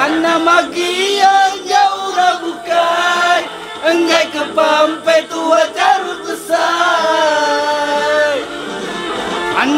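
Music with singing: a voice sings long, wavering phrases. One phrase fades just before the end, and a new one begins with a rising slide.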